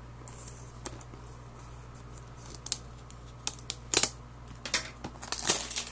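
Trading-card packaging and cards being handled: scattered sharp clicks, with crisp plastic crinkling that grows busier near the end.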